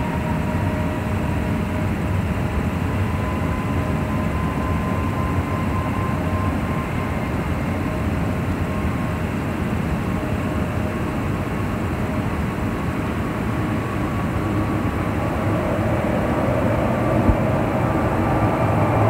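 Airbus A321neo airliner's jet engines running at low power as it taxis: a steady low rumble with a thin whine over it, getting somewhat louder in the last few seconds.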